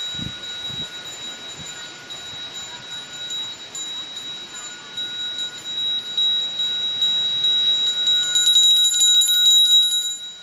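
A small hand bell rung continuously with a steady ring. Near the end it is shaken in quick repeated strikes and gets louder, then cuts off suddenly.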